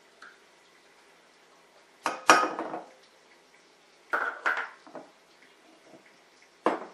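Measuring cup and utensil knocking and scraping against a mixing bowl as mayonnaise is emptied into it: a few sharp clinks, two loud ones about two seconds in, three more around four to five seconds, and one near the end.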